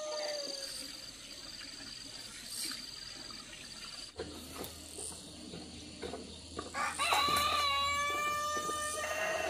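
Rooster crowing: the end of one crow fades just after the start, and a second long crow begins about seven seconds in and ends on a held, level note.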